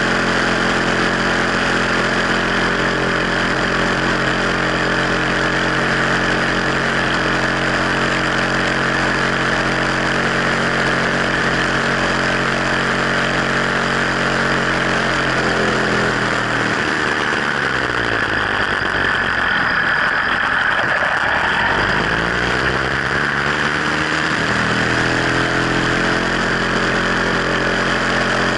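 66cc two-stroke Sky Hawk bicycle engine running while the bike is ridden. About halfway through, its revs fall away for several seconds, then climb back up.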